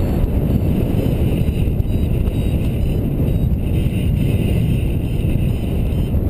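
Wind buffeting the harness-mounted camera's microphone during a paraglider flight: a loud, steady low rumble of airflow.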